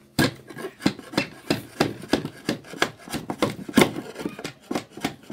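Wood chisel paring the protruding ends of wooden plugs flush with a board's face: quick, repeated scraping strokes of steel on wood, about three a second.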